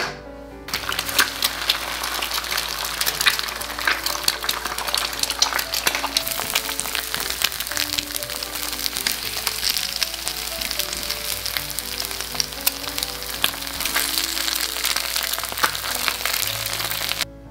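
Eggs frying in hot oil in a non-stick frying pan: a dense, loud sizzle full of small pops and crackles. It starts about a second in and cuts off suddenly near the end.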